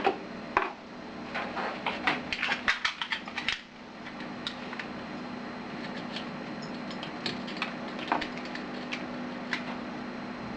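Small hard objects clicking and clattering as they are handled, in quick clusters for the first few seconds and then only scattered ticks, over a steady low hum.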